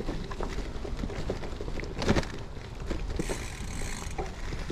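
Gravel bike rolling along a forest dirt path: a steady rumble of tyres on the ground, with the bike rattling and knocking over bumps and a louder knock about two seconds in. A brief hiss about three seconds in.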